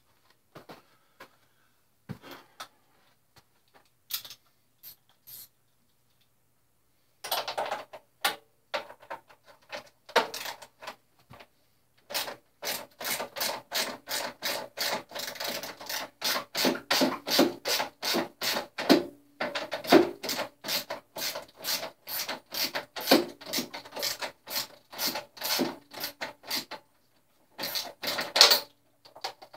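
Hand ratchet wrench working a muffler mounting bolt loose on a Suzuki Hayabusa: a few scattered clicks at first, then from about a quarter of the way in, long runs of quick ratcheting strokes, about three a second, with short pauses.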